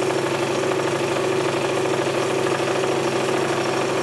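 Electric home candyfloss machine running with a steady motor hum as its heated head spins out sugar floss.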